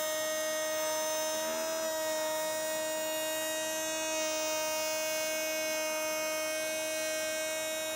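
Router mounted upside down in a router table, running with a steady whine while a board is fed slowly past the bit. The pitch holds level throughout: the bit is pretty much freewheeling, the sign of a feed that is too slow.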